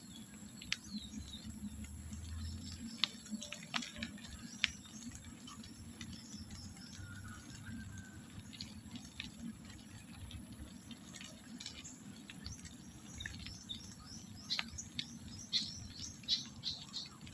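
Bicycle rolling along a wet concrete lane, heard from a phone mounted on the handlebar: a low rumble with scattered light clicks and rattles, and a few bird chirps. The clicks come thicker near the end.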